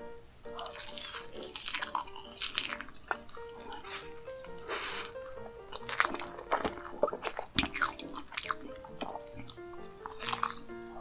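Close-miked ASMR eating of soft cream-layered sponge cake: wet chewing with sharp mouth clicks, the loudest about six, eight and ten seconds in. Light background music with a simple melody of short notes plays under it.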